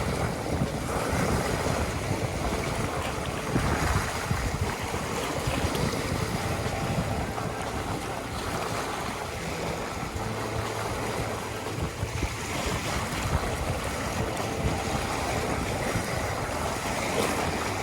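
Sea waves washing steadily, with wind blowing across the microphone.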